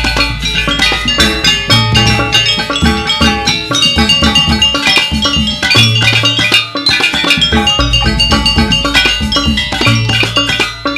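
Gamelan ensemble playing fast, dense interlocking metallophone figures over drums, with a deep low tone sounding every few seconds.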